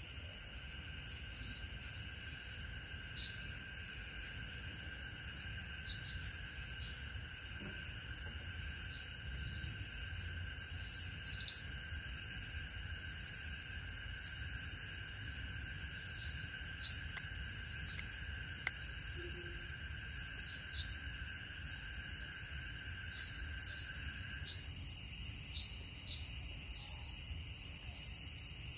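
Night chorus of crickets and other insects: a steady high pulsing trill, a lower steady whine that stops a few seconds before the end, and short chirps repeating at an even pace. There is one sharp click a few seconds in.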